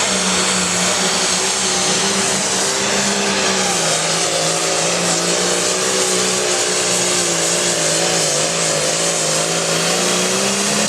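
International Harvester 1066 hot farm pulling tractor's turbo diesel engine running flat out under load as it drags the weight-transfer sled. The pitch holds steady, sags a little about four seconds in as the load builds, and wavers toward the end.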